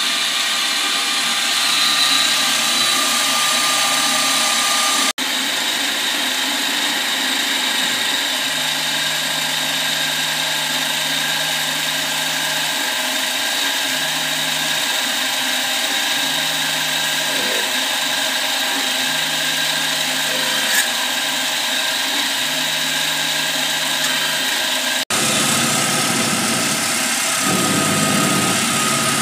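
CNC milling machine cutting an aluminium block, a steady machining noise with fixed whining tones. A low hum switches on and off repeatedly as the machine works.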